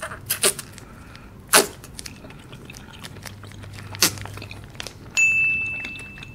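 A few sharp clicks and taps from handling a konjac jelly pack and tableware, then about five seconds in a single clear ringing ding that fades over about a second.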